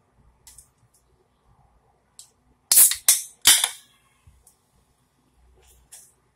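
A freezer-chilled can of Monster Energy drink cracked open close to the microphone. About three seconds in, the tab pops in three quick, loud bursts, the last trailing off.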